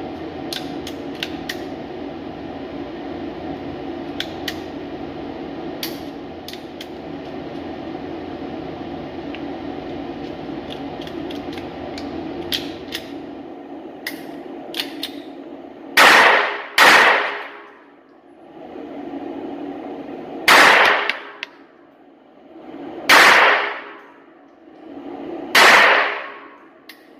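Five shots from a small handgun in an indoor range, each ringing off the walls: two about a second apart some 16 seconds in, then three more spaced two to three seconds apart. Before the shots, a steady ventilation hum and scattered light clicks of the gun being handled.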